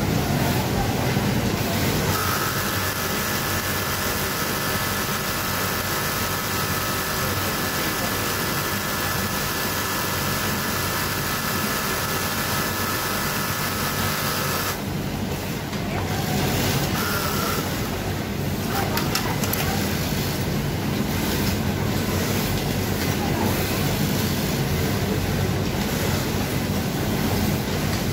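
Brother twin-needle lockstitch sewing machine running steadily as it topstitches a fabric band. Its steady whine starts about two seconds in and stops about halfway through. Underneath is a constant low hum of other machines on a garment factory floor.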